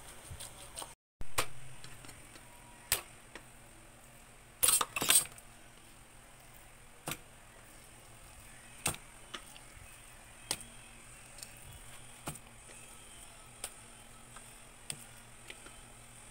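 Plastic rice paddle tapping and scraping against an aluminium pot while thick sticky rice is stirred and scooped: sharp taps every second or two, loudest as a quick cluster about five seconds in.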